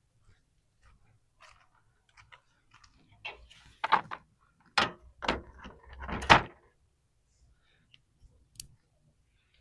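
Scattered clinks and knocks of metal tools and parts being handled while working on the mower's coolant hose fitting, with three louder knocks about four, five and six seconds in.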